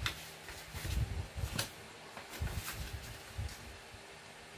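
A sheet of printer paper being folded and creased by hand on a wooden table: soft rustling and sliding, with a couple of sharp paper crackles (one at the start, one about a second and a half in) and dull knocks of hands on the tabletop.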